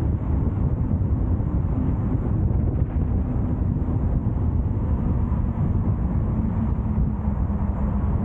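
A car driving along a road: a steady low rumble of road and wind noise buffeting the microphone, with a faint engine hum underneath.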